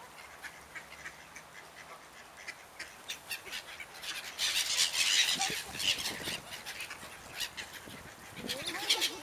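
Black-headed gulls calling as they fly close by, a flurry of short sharp cries about halfway through and another near the end.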